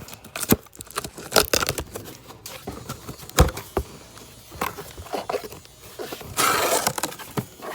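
Cardboard shipping box being opened by hand: scattered knocks, taps and scrapes, with a loud knock about three and a half seconds in and a longer tearing rustle near the end.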